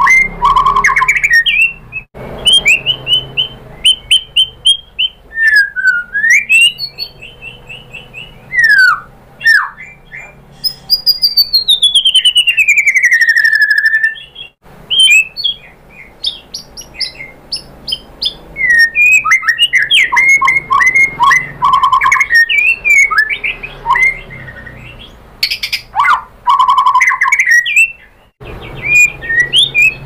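A white-rumped shama (murai batu) sings a loud, varied song of clear whistles, rapid trills and chattering runs of repeated notes. About halfway through it gives one long falling whistle. The song breaks off briefly a few times.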